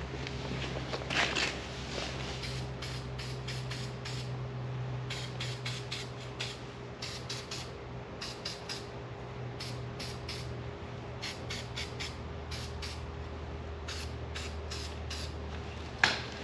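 Aerosol spray paint can spraying in many short bursts, with one longer spray about a second in, from a can with only a little black paint left in it. A steady low hum runs underneath.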